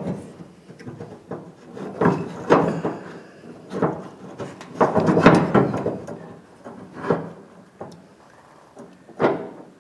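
Tailgate handle and latch rods of a Chevy S10 pickup's tailgate knocking and clunking as they are worked into place by hand: irregular knocks, thickest from about two to five seconds in, with a sharp one near the end.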